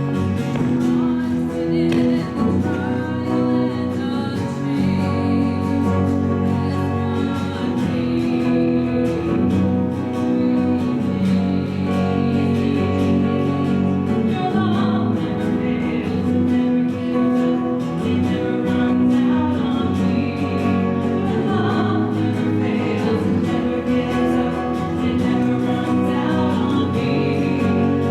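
Music: a worship song sung by a group of voices, with instrumental accompaniment.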